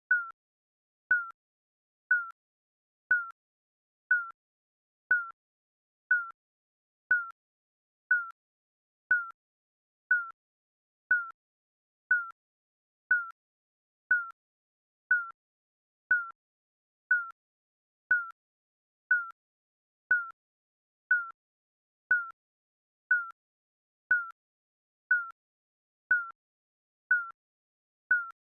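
Digital countdown timer beeping once a second: short, mid-high electronic pips that dip slightly in pitch and die away quickly.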